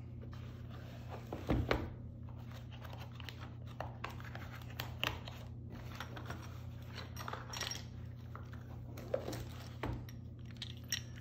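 Small plastic GoPro mounts, clips and batteries handled in and out of a zippered carry case: scattered light clicks, knocks and rustles, with a sharper knock about a second and a half in and another near the end. A steady low hum runs underneath.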